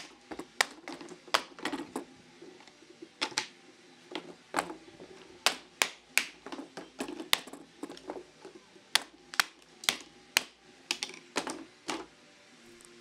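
Box-jointed wooden drawer sides being knocked apart and clattering onto the workbench: an irregular run of sharp wooden clacks and knocks that stops about a second before the end.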